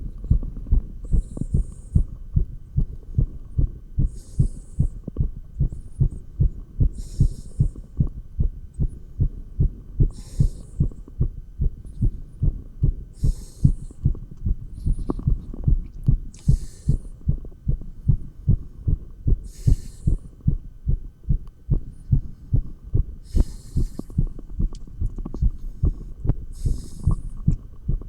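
Human heartbeat picked up by a stethoscope on the chest: a rapid, steady run of low lub-dub thumps, the heart rate raised by dumbbell exercise. A faint hiss comes about every three seconds.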